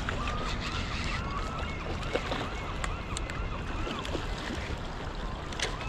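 River current gurgling and rushing, with wind rumbling on the microphone.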